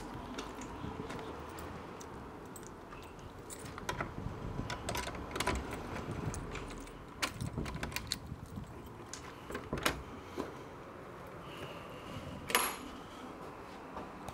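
A bunch of keys jangling and a key working in the lock of a wooden door, with scattered sharp clicks and knocks; the loudest come about ten seconds in and again near the end.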